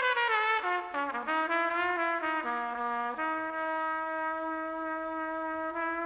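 Jazz orchestra with brass playing a line that steps downward over the first three seconds, then holds one sustained chord.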